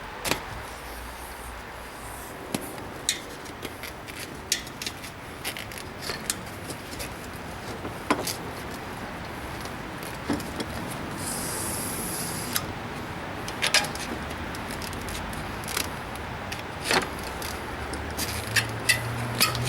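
Scattered metallic clicks, clinks and knocks as a bicycle wheel and tyre are worked apart by hand with a screwdriver, with a short hiss about eleven seconds in.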